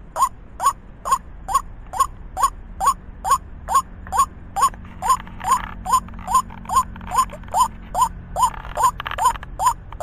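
White-breasted waterhen giving its monotonous croaking call: short notes repeated evenly a little over twice a second, each note bending up and then down in pitch.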